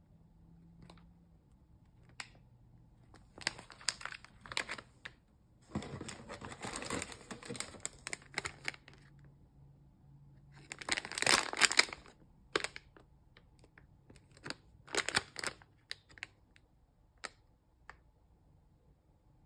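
Foil blind-bag packets crinkling as they are handled and turned over, in several short bursts with light taps between, loudest a little past the middle.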